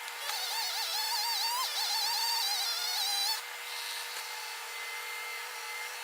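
Two-stroke chainsaw running at high revs, its engine pitch wavering up and down as it cuts under load, easing off about three and a half seconds in.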